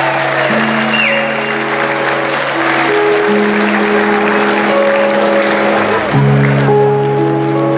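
A live blues band holds long sustained chords while the crowd applauds and cheers. A short falling whistle from the crowd comes about a second in. The applause dies down about six seconds in as the music carries on.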